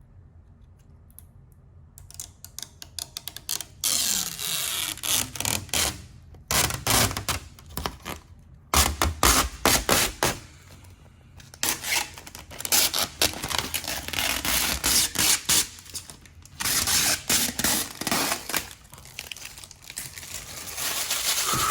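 Protective plastic film being peeled off a PC case's clear panel: crackling, tearing peel sounds in irregular bursts with short pauses, starting a couple of seconds in.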